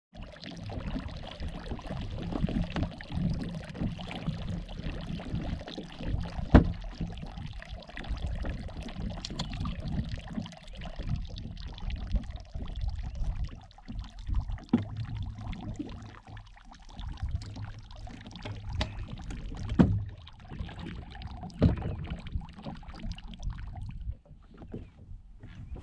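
Lake water lapping against a drifting bass boat's hull, with low wind rumble and a few sharp knocks on the boat, the loudest about six and a half seconds in and twice near the end.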